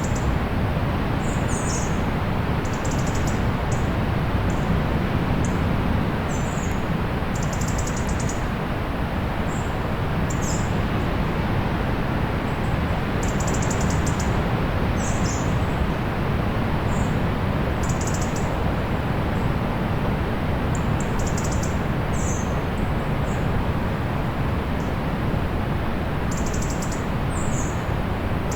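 Steady wash of distant sea surf, with small birds chirping over it: short, high calls every second or two, some as quick runs of notes.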